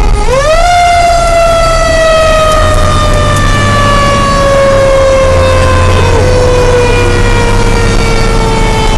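Fire engine siren heard from inside the cab, loud: it winds up sharply in pitch about a second in, then slowly winds down over the next several seconds. Under it is the low rumble of the truck's engine.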